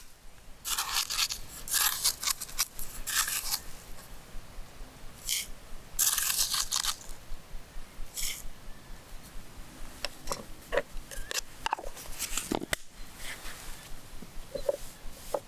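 Packaging crinkling and rustling in several short bursts, then lighter clicks and scrapes.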